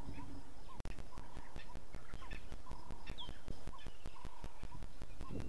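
Waterhole wildlife calling: a short phrase of calls repeats about once a second over a steady background of fine clicking. A single higher bird note sounds about halfway through. The sound cuts out for an instant just under a second in.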